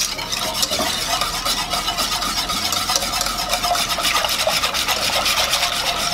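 A whisk stirring milk into a roux in a pan, its wires scraping the pan in rapid, steady strokes as a béchamel sauce comes together.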